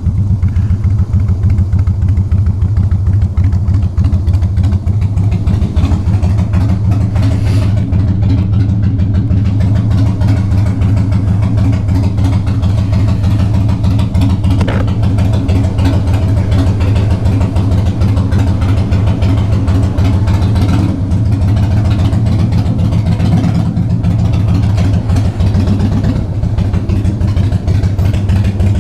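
Harley-Davidson Softail Fat Boy's air-cooled V-twin engine idling steadily with a low, even pulse.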